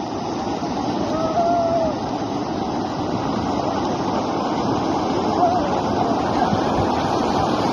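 Floodwater rushing in a steady, loud wash of noise, with a few faint voices calling out now and then.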